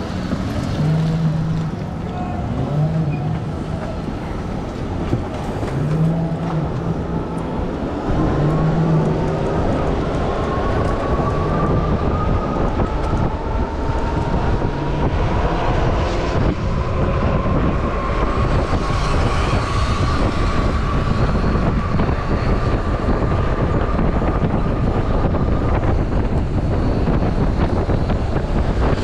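Wind and road noise while riding an electric two-wheeler down a street, with the electric motor's whine rising slowly in pitch as it picks up speed from about eight seconds in.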